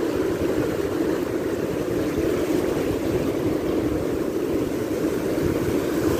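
Shallow surf washing and foaming, with a steady, ragged wind rumble on the microphone.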